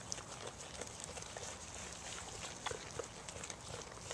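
A black-faced sheep eating morning glory vines: scattered crisp clicks and rustles as it pulls at and chews the leaves.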